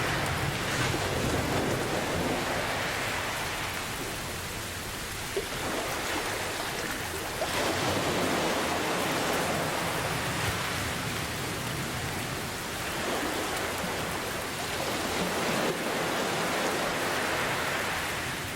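Steady heavy rain mixed with ocean waves, the wash swelling and easing every few seconds, under a low rumble of thunder.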